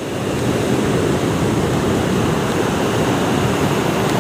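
Sea surf breaking and washing up over a pebble-and-rock shore, heard as a steady rush of water.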